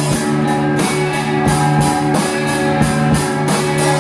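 A live rock band playing an instrumental stretch of a song: guitar notes held over a drum kit keeping a steady beat of about three cymbal hits a second.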